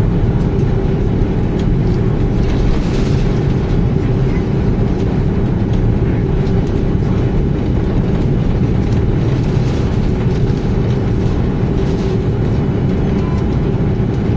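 Cabin noise inside an Airbus A320 taxiing: a steady, loud low rumble of the jet engines at taxi power and the wheels on the taxiway, with a faint even hum over it.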